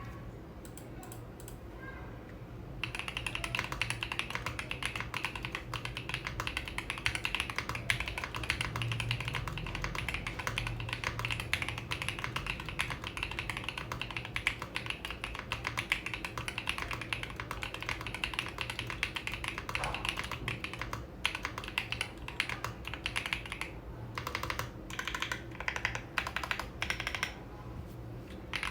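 Typing sound test on an Epomaker P65 65% mechanical keyboard with Epomaker linear switches and a PC plate. The keystrokes are thocky and poppy. After a few scattered key presses, fast continuous typing starts about three seconds in, and near the end it breaks into short bursts with pauses.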